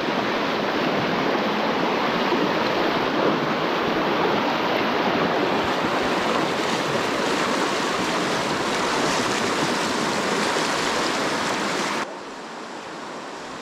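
Steady rush of a shallow, clear stream running over a stony riffle. About twelve seconds in it drops suddenly to a softer, quieter water sound.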